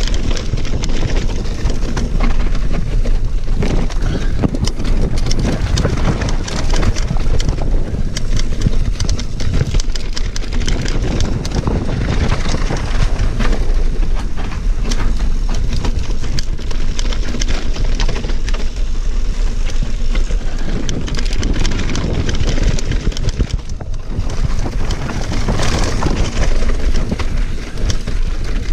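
Mountain bike riding down rough rock and loose stones: tyres crunching, with the chain and frame rattling in a steady run of clicks and knocks, and wind on the microphone.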